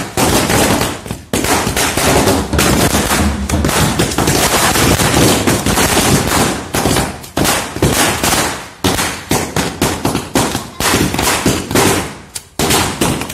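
Firecrackers going off on the ground in rapid succession: a dense run of sharp, crackling bangs with a few brief lulls.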